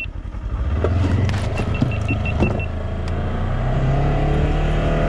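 Vehicle engine pulling away and speeding up, its pitch rising over the first few seconds and then holding steady. A quick run of about six short high beeps comes about two seconds in.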